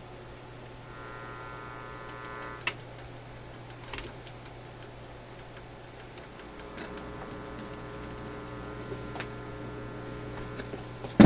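Steady mains hum and buzz from the Newcomb record player's amplifier, coming and going as its input selector switch is worked, with a few sharp clicks. The switch is dirty.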